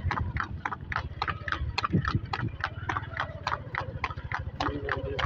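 Water buffalo's hooves galloping on a paved road while it pulls a racing cart: a fast, even clip-clop of about five or six hoofbeats a second over a steady low rumble.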